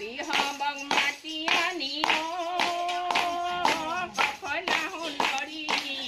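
A group of women singing an Assamese devotional naam in unison, with long held, wavering notes, keeping time with steady hand claps about two to three a second.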